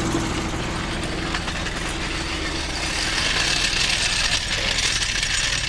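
An engine idling steadily, with a broad hiss rising over it about halfway through.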